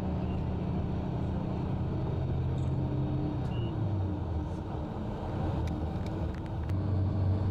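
Tour bus engine and road noise heard inside the cabin: a steady low drone whose pitch dips about halfway through and picks up again near the end, with a few faint ticks or rattles in the second half.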